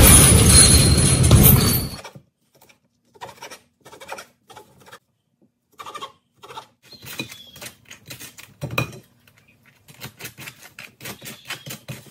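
Background music cuts off about two seconds in. Then a kitchen knife taps and knocks irregularly on a wooden cutting board as cooked beef is chopped, with one louder knock partway through.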